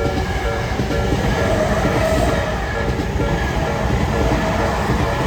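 Tokyo Metro 10000 series electric train running over a level crossing, its wheels clattering on the rails in a steady loud rumble. The crossing's warning bell rings over it with a repeated tone.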